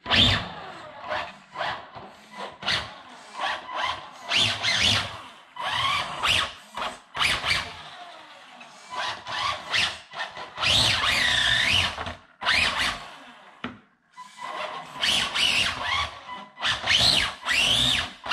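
Electric motor of a Tamiya Tornado RC racing car whining in short bursts, its pitch rising and falling as the car is driven back and forth on a wooden tabletop, with the tyres squealing and rubbing on the wood. It goes quiet for a moment about fourteen seconds in.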